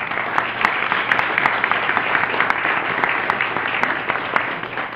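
Audience applauding, with a number of sharp, loud claps close by standing out from the general clapping.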